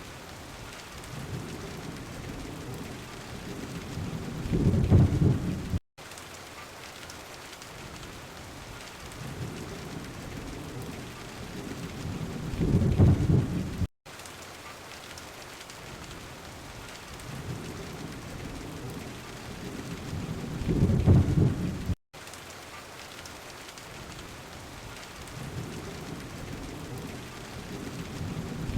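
Steady rain with a low rolling thunder rumble that swells and peaks four times, about every eight seconds, each peak cut off by a brief dropout to silence. It is one short rain-and-thunder recording played on a loop.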